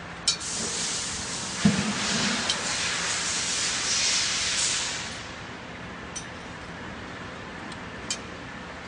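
Compressed air hissing from the pneumatic stroller wheel-rim welding machine, starting with a click and cutting off about five seconds in, with a low thump early on. Afterwards only a few light metallic clicks as the rim is handled in the clamps.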